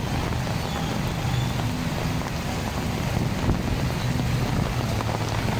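An engine running steadily with a low hum, under a wash of wind noise on the microphone.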